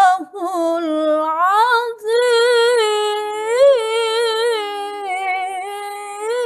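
A woman's voice chanting long, ornamented held notes in the style of Quranic recitation, unaccompanied. The pitch wavers up and down, with a short break for breath about two seconds in.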